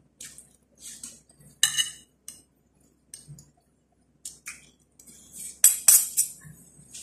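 Metal spoon and fork clinking and scraping against a ceramic plate as food is served, a string of short clinks, some with a brief ring. The loudest come a little under two seconds in and about six seconds in.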